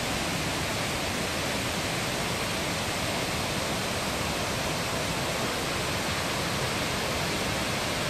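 Thi Lo Su, a tall multi-tiered waterfall, rushing steadily: an even, unbroken hiss of falling water.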